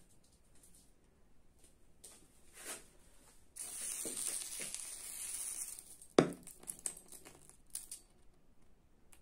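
Sodium metal reacting with hot water: faint crackling, then a loud hissing fizz for about two seconds. It ends in a sharp bang as the sodium explodes, followed by a few smaller pops and crackles.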